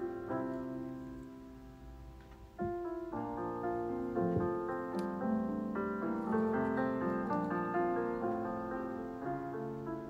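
Background piano music: a gentle piano piece, softer around two seconds in and fuller again from about two and a half seconds.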